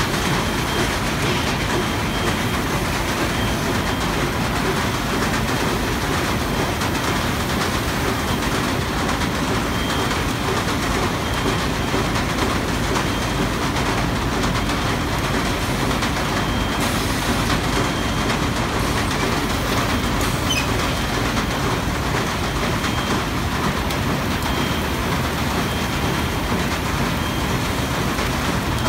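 Automatic vibrating waste-stripping and counting stacker for corrugated board running: a steady, even machine noise that does not let up.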